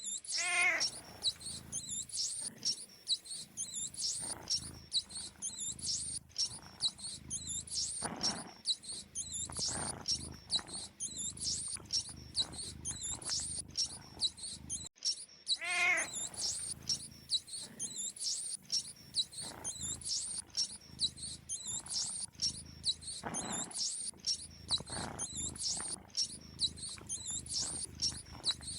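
Rapid, continuous high-pitched squeaking of mice. A cat meows once just after the start and again about halfway through, as part of a sound loop that repeats every fifteen seconds or so.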